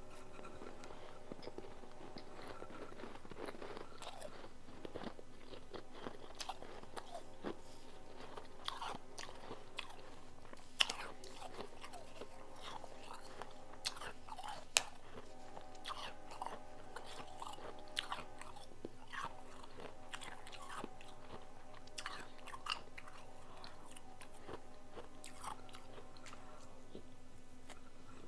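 Close-up biting and chewing of powdery ice: a run of crisp crunches, with two sharper, louder crunches at about eleven and fifteen seconds in. A faint steady hum sits underneath.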